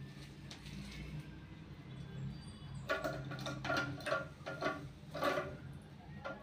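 Toilet cistern's flush lever and arm being handled during a repair: a quick run of sharp clinks and knocks from about halfway in, over a steady low hum.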